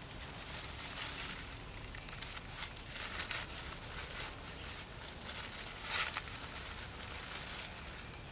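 Dry fallen leaves crackling and rustling under a cat stepping and nosing through them, in a run of short crunches with the loudest about six seconds in.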